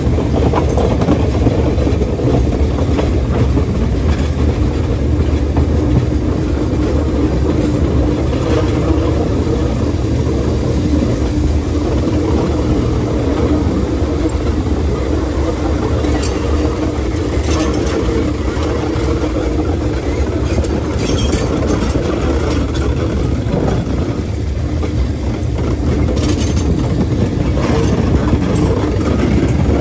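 DJ-class diesel-electric locomotive running under way, heard close up: a steady engine drone mixed with wheel and rail noise and wind. A few short, sharp high sounds break through in the second half.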